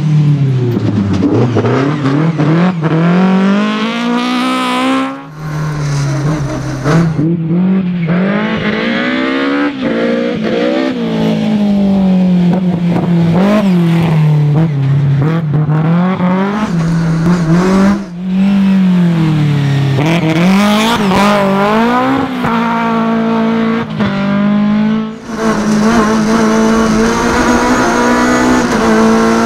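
BMW M3 E30 rally car's four-cylinder engine revving hard, its pitch climbing again and again and dropping back sharply at each gear change or lift of the throttle.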